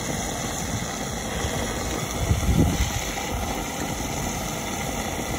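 Diesel running through a fuel pump nozzle into a car's tank: a steady rushing rumble, a little louder about two to three seconds in.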